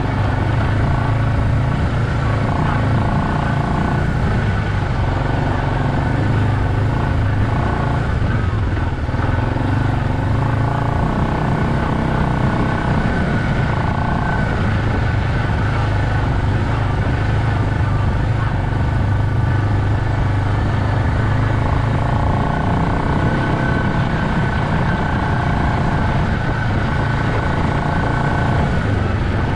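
Four-wheeler (ATV) engine running steadily while riding, a constant low drone at an even level.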